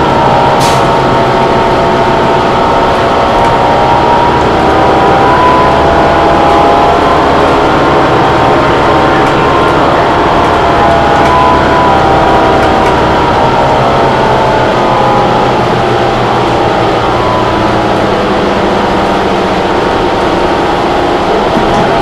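Interior of a 2011 New Flyer Xcelsior XD40 city bus under way: its Cummins ISL9 inline-six diesel and Allison transmission running, with a steady whine that slowly drops and rises in pitch with road speed. A single sharp click about half a second in.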